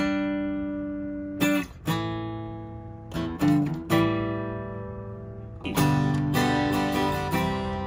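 Taylor 110GB steel-string acoustic guitar, freshly set up with new strings, strummed in chords that are left to ring out. A few separate strums in the first five seconds, then steadier strumming near the end.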